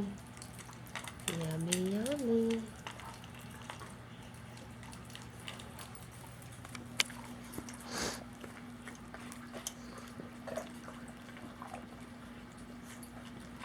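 Dogs eating from their bowls: scattered small clicks and ticks of feeding, with a short hummed "mmm" about a second in and a faint steady hum starting about halfway through.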